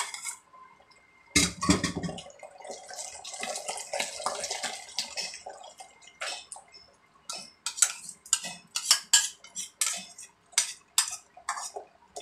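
Utensil and cookware clatter while tomato sauce goes into a non-stick wok: a heavy knock about a second in, a few seconds of hiss, then a run of sharp clinks about two a second.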